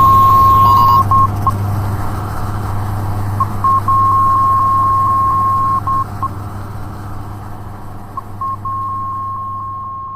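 Sound effect of a fictional satellite tower: a steady low electrical hum under a high beeping tone that repeats in a cycle of a few short blips followed by a long tone with brief breaks, about every four to five seconds. The whole sound grows gradually quieter toward the end.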